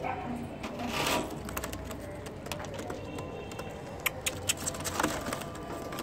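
Domestic pigeons stirring in a wire-mesh coop: a brief rustle about a second in, then several sharp clicks and taps near the end, over a steady low background hum.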